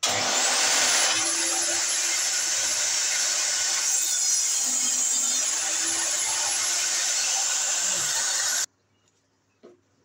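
Sliding-table saw running with its blade cutting through a particle board panel, a thin high whine riding over the cutting noise. The sound stops abruptly about three quarters of the way through, leaving near silence with one faint tap.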